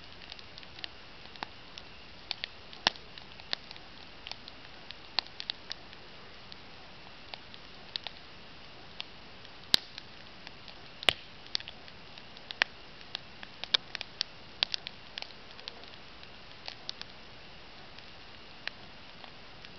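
Campfire crackling: irregular sharp snaps and pops of burning wood over a faint steady hiss, with a few louder pops about ten and eleven seconds in.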